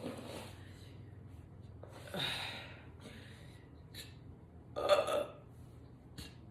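A woman burping: a softer burp about two seconds in and a louder one about five seconds in.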